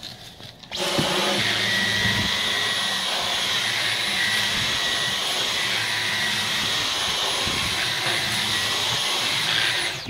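Dyson V11 cordless stick vacuum starts up about a second in and runs steadily in its Medium suction mode, a high whine over the rush of air, as its floor head sweeps the carpet of a car boot.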